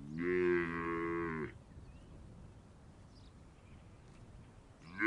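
A cow mooing: one long moo that rises, holds and falls away over about a second and a half, then another moo starts near the end.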